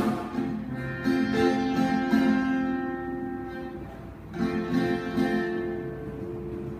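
A band playing through a sound check, a guitar strumming chords that ring out; the chord is struck again about a second in and once more a little past four seconds in.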